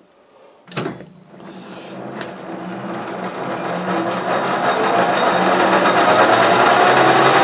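Metal lathe switched on with a clunk about a second in, its four-jaw chuck spinning up: the running noise grows steadily louder over several seconds, with a whine that slowly rises in pitch.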